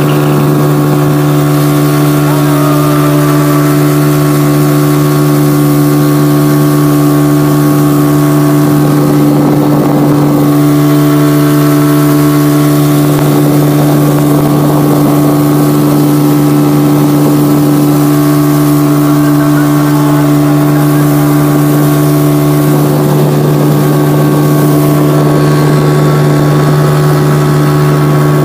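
Motorboat engine running at a steady speed, heard from on board: a loud, even hum that holds the same pitch throughout.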